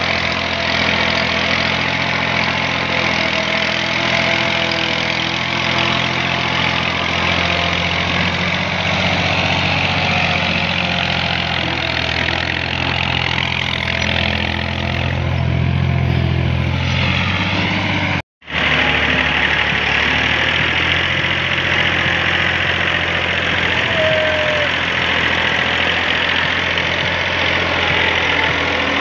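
Diesel farm tractor engine running hard under heavy load, pulling a fully loaded trolley through soft ground. A little over halfway through, the sound drops out for a split second and another tractor's engine takes over, also running under load.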